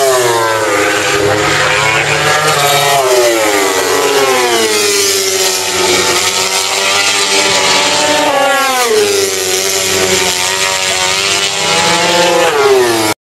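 Racing motorcycle engines at high revs as several bikes run down a wet straight, the engine note falling in long downward glides as they pass. The sound cuts off abruptly near the end.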